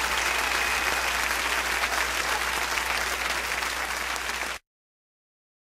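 Applause, a dense steady clapping that cuts off abruptly near the end.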